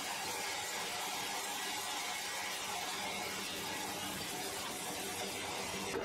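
Band sawmill blade cutting lengthwise through a large log, making a steady hiss over a faint, even low hum from the mill.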